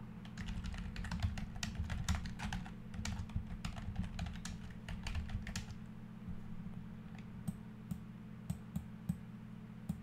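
Typing on a computer keyboard: a quick run of key clicks for about six seconds, then a few scattered single clicks, over a steady low hum.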